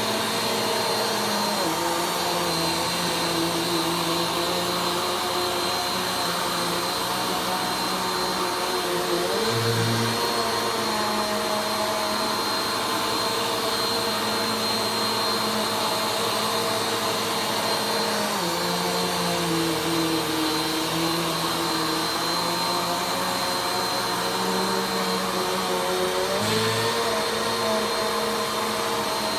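Vacuum cleaner running steadily during slow vacuuming, its motor note dropping and rising again twice as the load on it changes.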